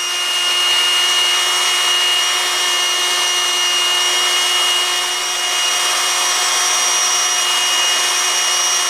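Small benchtop belt sander running, a steady whine over a grinding hiss, as a bone guitar saddle held in vise grips is pressed against the belt to sand its bottom flat down to a marked line. The sound builds to full strength over the first second.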